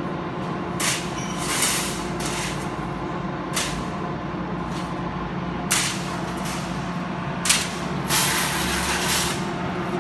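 CNC plasma cutting machine humming steadily, with repeated short bursts of hissing and a longer hiss near the end.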